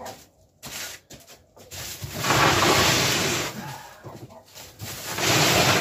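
A large cardboard box holding a 125cc ATV scraping across a concrete floor as it is pushed, in two pushes: a longer one about two seconds in and a shorter one near the end.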